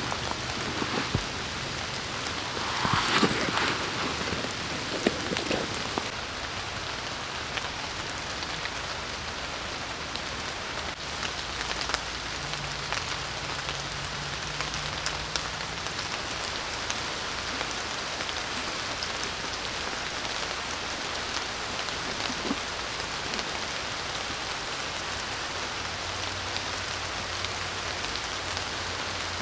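Steady rain falling on leaves and grass: an even hiss with scattered drop ticks. A brief louder rustle comes about three seconds in.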